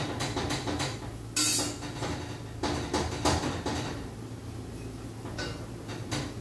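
A metal utensil scraping and knocking against a stainless steel pot as ground beef is stirred and pushed aside to free it from the bottom, with one louder scrape about a second and a half in.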